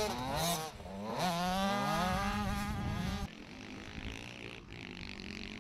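Small motocross bike's engine revving hard, its pitch dipping and then climbing as the rider accelerates. About three seconds in it cuts off abruptly to a quieter engine sound from a bike farther away.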